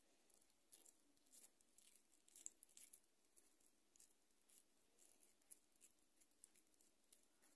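Near silence, with faint scattered ticks of wet bulgur dough being squeezed and hollowed by hand into an içli köfte shell.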